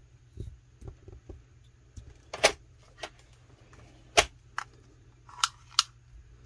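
Handling noises on a tabletop as a sheet of clear vinyl and a flexible plastic ruler are moved about: a few soft bumps in the first second and a half, then about six sharp clicks and snaps, the loudest about four seconds in.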